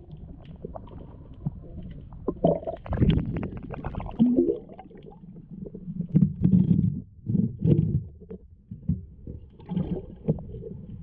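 Underwater sound of a diver's exhaled air bubbles, low rumbling and gurgling swells coming every second or two, with scattered short clicks and knocks.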